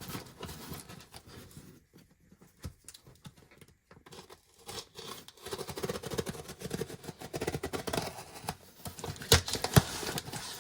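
Cardboard parcel being handled and opened: irregular scraping, rustling and tearing, busier in the second half, with two sharp knocks a little over a second from the end.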